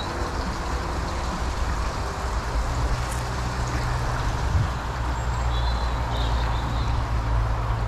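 Steady low rumble of wind buffeting the microphone outdoors, with a few faint bird chirps near the start and again in the second half.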